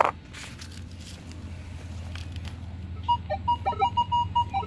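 Minelab Equinox 800 metal detector sounding its target tone over a silver coin: a low hum at first, then from about three seconds in a run of short beeps at one steady pitch, several a second, a solid signal from the coin lying flat.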